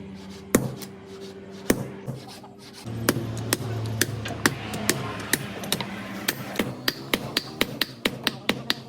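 Blacksmith's hammer striking steel while forging a sickle blade: a few single blows, then from about three seconds in a quicker, regular run of strikes, about three a second near the end.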